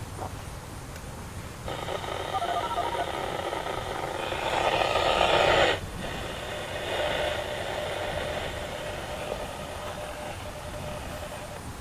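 ASC iForce STi-3200 electronic outdoor warning siren sounding its pulse signal in a tornado siren test, several steady tones at once. It sets in about two seconds in and swells to its loudest. Just under halfway it drops off sharply, then carries on fainter.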